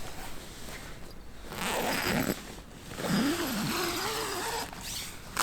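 A zipper drawn in two long rasping pulls, the first about a second and a half in and the second, longer one about three seconds in.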